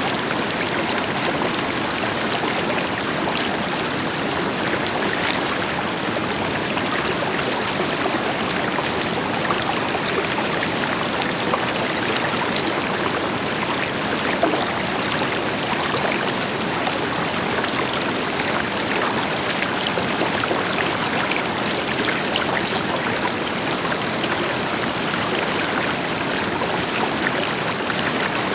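Steady rushing and babbling of a river flowing over rocks, with the deeper hiss of a waterfall behind it and small splashes throughout.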